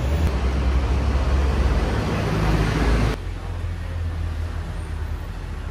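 Street traffic: a heavy vehicle's engine rumble and road noise, which drops suddenly about three seconds in to quieter passing traffic.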